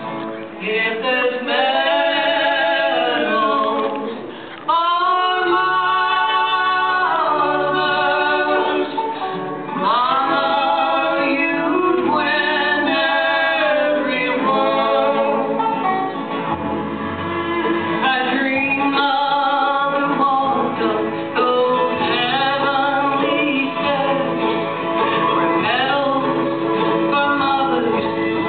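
Live bluegrass band playing and singing, with acoustic guitar under the vocals; the music gets louder about five seconds in.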